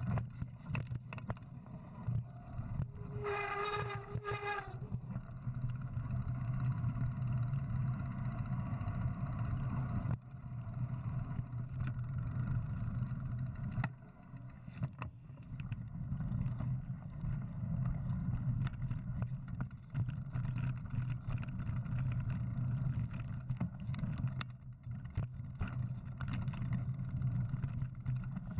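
Mountain bike rolling over rock trail, heard from a rider-mounted camera: a steady low rumble of wind and tyres with rattling clicks and knocks from the bike over the rough ground. A brief high squeal sounds about three seconds in.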